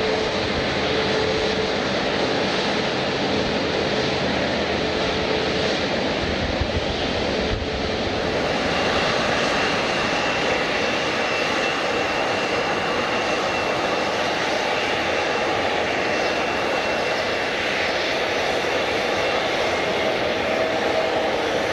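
Airliner engines running loud and steady. About 8 seconds in the sound changes, and a thin high whine sits over the engine noise for about ten seconds.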